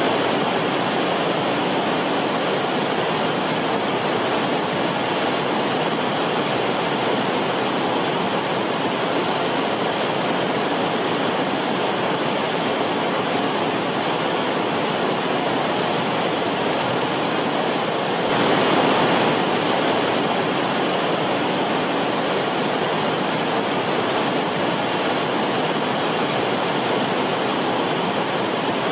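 Forest stream of water rushing and splashing in a steady, even hiss, swelling briefly about two-thirds of the way through.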